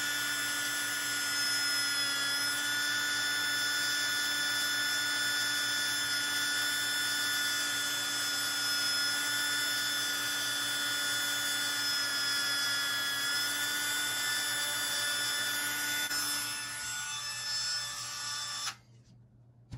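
Small handheld rotary tool running steadily with a high whine, driving a tiny drill bit through the plastic axle truss of an SCX24 1/24-scale crawler. Its pitch dips slightly a couple of times as the bit bites, and it shuts off suddenly near the end.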